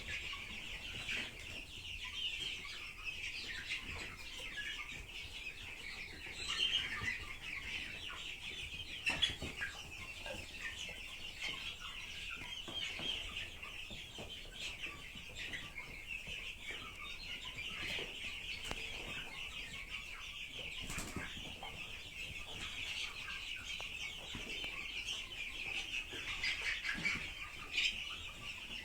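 A flock of chickens clucking and chirping steadily, a continuous chatter of many small calls with a few louder ones standing out.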